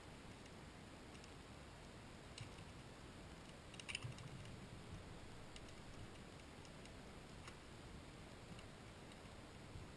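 Near silence with a few faint clicks, the loudest a short cluster about four seconds in.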